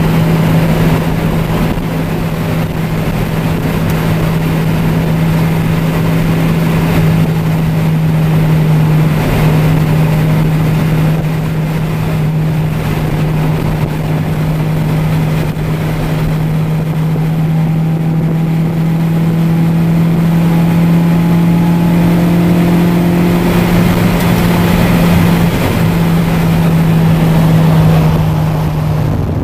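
Car at steady motorway cruising speed, heard from inside the cabin: a constant low engine drone over road and wind noise.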